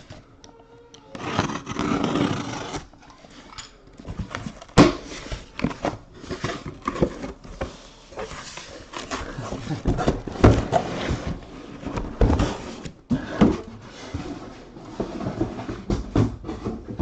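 Irregular rustling and handling noises, with scattered clicks and knocks and one sharp knock about five seconds in.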